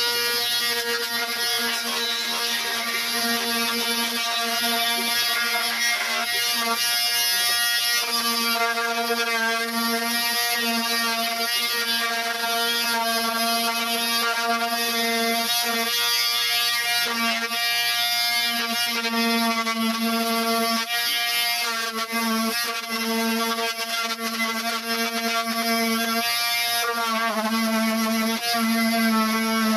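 Small handheld oscillating power tool running with a steady, high buzz as it works rust off a steel bus tailgate frame, the pitch wavering slightly as it bears on the metal.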